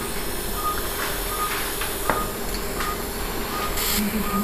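Operating-theatre patient monitor beeping in time with the pulse: a short, high beep about every three-quarters of a second, over a steady hiss and hum of theatre equipment, with one small click about two seconds in.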